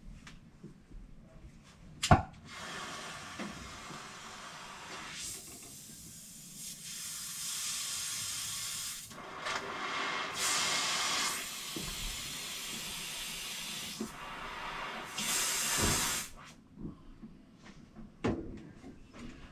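Oxy-acetylene brazing torch hissing as gas rushes through the tip. It starts after a sharp click about two seconds in, surges louder and softer several times, and cuts off near the end. The technician blames the trouble on dirt in the torch tip.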